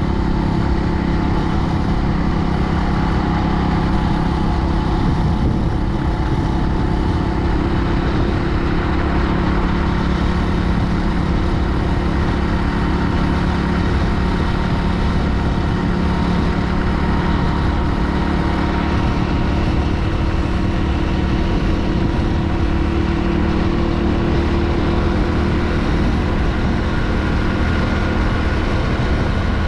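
Motorcycle engine running steadily at a constant cruising speed on the road, with rough wind noise on the microphone underneath.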